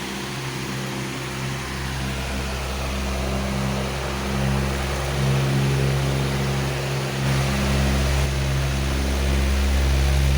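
Powerful electric fan running steadily: a low motor hum under a constant rush of air.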